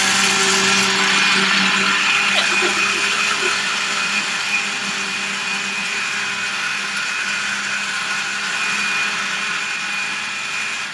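Countertop blender running steadily, blending milk, ice and coffee beans into a frappuccino.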